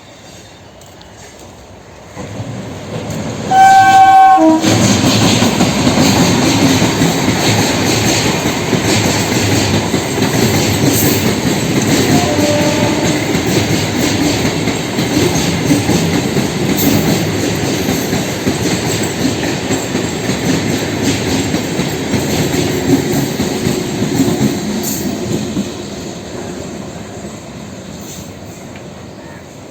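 Electric multiple unit (EMU) local train sounding a short horn blast about four seconds in, then running past close by, its wheels rumbling and clattering on the track for some twenty seconds before the sound fades away.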